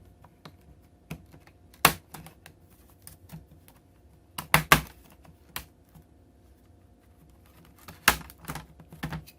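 Plastic snap clips on an Acer Aspire 5 laptop's bottom cover clicking loose as the cover is pried open around its edge: a sharp click about two seconds in, a quick run of three in the middle, and another loud click followed by a few smaller ones near the end.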